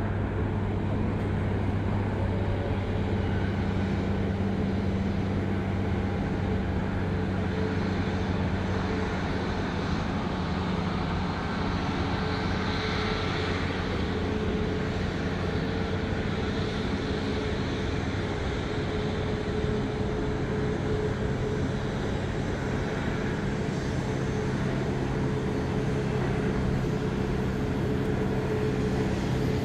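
Cessna 182T Skylane's six-cylinder piston engine and propeller droning steadily at takeoff power as the plane climbs out.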